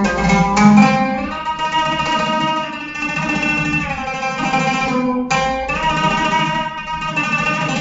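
Solo oud playing an Arabic melody: quick plucked notes at the start, then long held notes.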